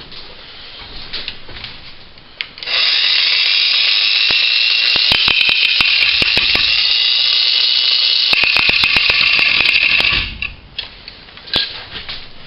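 Ryobi One+ 18-volt 4-1/2" cordless angle grinder starting about three seconds in and cutting into a steel screw with a cut-off wheel, a loud steady whine with scattered clicks of wheel contact. Its pitch drops once and it stops about ten seconds in as the battery runs dead.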